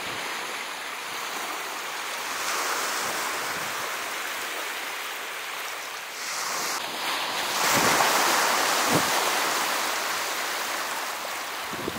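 Small sea waves washing in over a pebble shoreline, a steady rush of water that swells into a louder surge a little past the middle.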